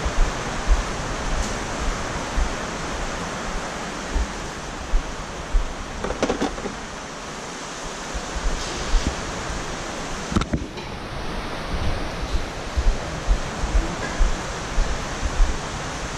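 Heavy typhoon rain falling steadily, a constant rushing hiss, with scattered low thumps.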